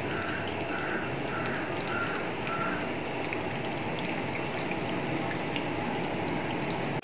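Hot oil sizzling steadily with fine crackle around rice-flour and potato patties shallow-frying in a pan, as they are turned over. A run of six short, faint high tones, about two a second, sounds over it in the first three seconds.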